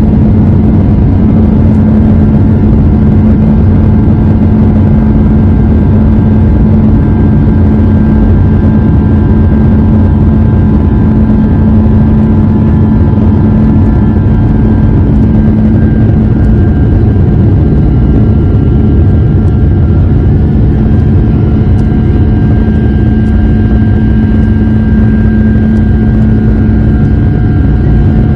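Airbus airliner's jet engines during takeoff, heard from inside the cabin at a window seat: a loud, steady roar with a droning hum and thin steady engine tones that shift slightly about halfway through.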